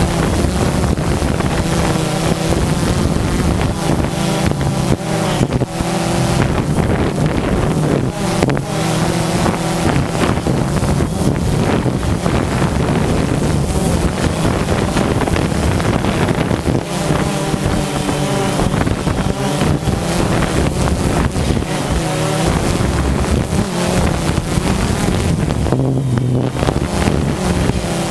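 A motor engine running steadily, its pitch rising and falling at times, with wind noise on the microphone.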